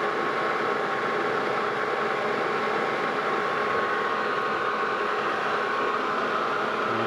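Lodge and Shipley engine lathe running with its four-jaw chuck and a long shaft turning: a steady hum of the headstock and gear train, with several steady whining tones over an even mechanical noise.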